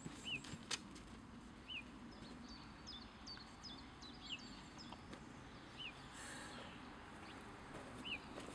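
Small songbirds calling: a short chirp repeated about every second and a half, with thinner, higher notes between, over a faint steady background.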